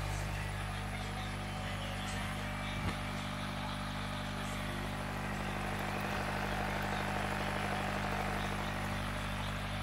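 Steady electrical hum of running aquarium equipment, with the hiss and bubbling of aeration breaking the water surface. A single light knock about three seconds in.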